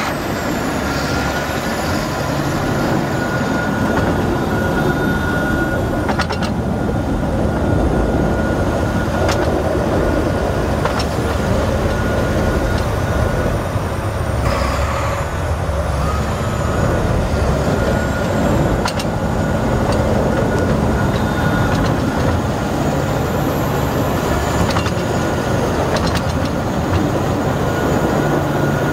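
2009 John Deere 9230 four-wheel-drive tractor's 9.0 L diesel engine running steadily as the tractor is shown around the yard.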